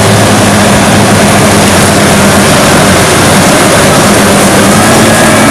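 Caterpillar 140K motor grader's diesel engine running steadily and loud under load, a continuous low hum, with the rough noise of its blade scraping and pushing gravel along the road.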